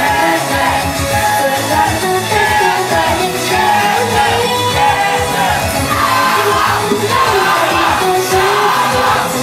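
Female idol group singing an upbeat pop song into handheld microphones over an amplified backing track.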